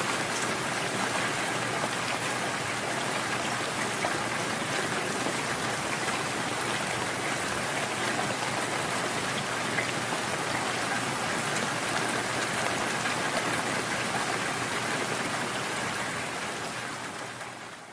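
Steady rain falling, a dense patter of drops, fading out over the last couple of seconds.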